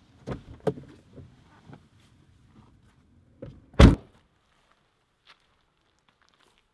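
A couple of light knocks, then a door slams shut just before four seconds in with one heavy thud, the loudest sound.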